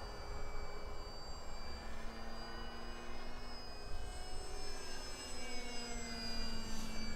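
Brushless electric motor and propeller of a remote-control Cessna 182 model airplane in flight: a thin, steady whine whose pitch rises around the middle and falls again near the end.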